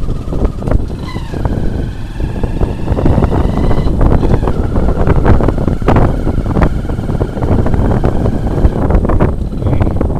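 Hero Honda motorcycle's small single-cylinder engine running while riding a rough dirt track, with occasional knocks as the bike goes over bumps.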